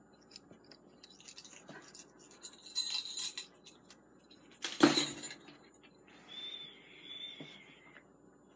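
Small jingle bells on a chained begleri skill toy jingling and clinking as it is swung, with a cluster of jingles partway through and one sharp, loud clink about five seconds in.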